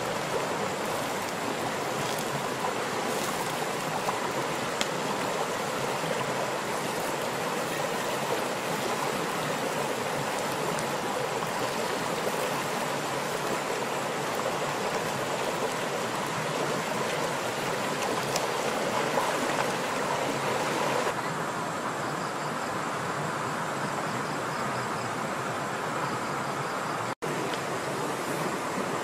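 A shallow river rushing over rocks: a steady, even rush of water. It turns duller about two-thirds of the way through and breaks off for a moment near the end.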